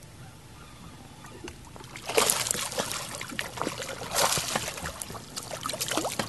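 A hooked bass thrashing and jumping at the water's surface, splashing in several loud bursts from about two seconds in.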